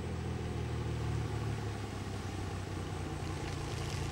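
Single-engine floatplane touching down on a river and skimming along on its floats, its propeller engine running steadily at a low drone over a rush of water spray.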